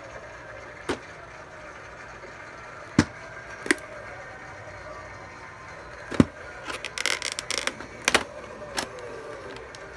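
Plastic VHS clamshell case being handled: a scatter of sharp clicks and taps as it is turned over and swung open, with a brief rattling clatter of plastic about two-thirds of the way through.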